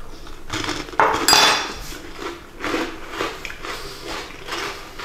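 A person chewing a mouthful of fattoush salad with crunchy fried pita croutons: a loud crunchy bite about a second in, then a string of short crunching chews.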